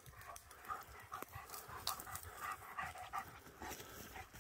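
A German shepherd panting, short breaths in a quick, even rhythm.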